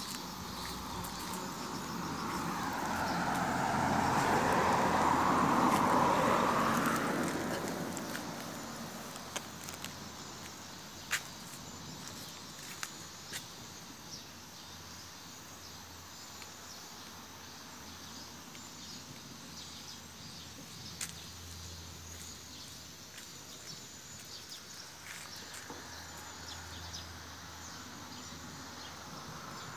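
A car passes, its noise swelling to a peak and fading away over about six seconds early on. Then a quiet outdoor background follows, with faint insects chirping and a few light clicks.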